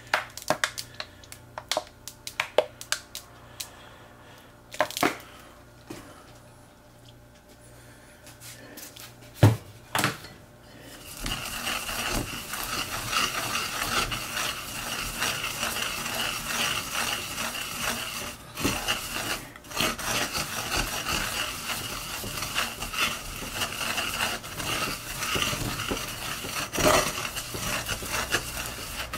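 Wooden pestle working sesame seeds in a ridged earthenware suribachi mortar. Scattered light clicks and a few sharp knocks against the bowl come first. About eleven seconds in, a steady gritty rasping of the seeds being ground against the ridges takes over.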